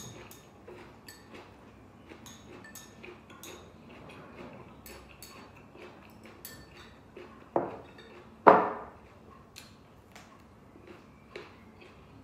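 Eating from a bowl of noodle soup: chopsticks and a spoon clicking against the bowl many times, with two loud, short slurps of noodles about two-thirds of the way through, the second one louder.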